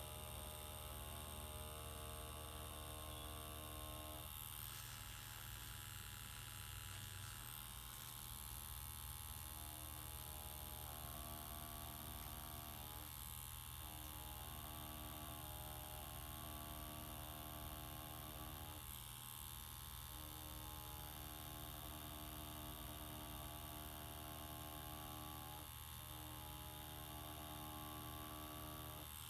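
Pen-style rotary tattoo machine humming steadily as it runs on practice skin, its tone thinning briefly several times.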